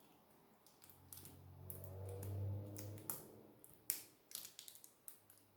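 Small sharp clicks and ticks of tools working at a tablet's ribbon-cable connectors, the loudest near the middle, with a low hum rising and fading over about two seconds in the first half.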